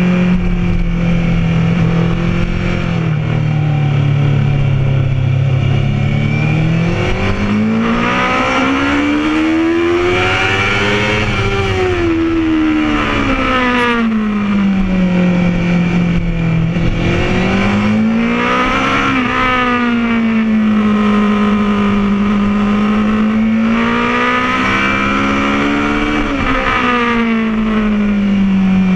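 Honda CBR1000RR's inline-four engine at speed, the revs climbing under acceleration and sinking on the brakes several times, with sudden drops in pitch at gear changes, over a rush of wind.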